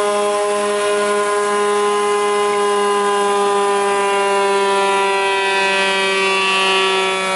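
Kupfermühle 60 four-sided planer running idle with no wood being fed: a steady mechanical hum of several pitches held together.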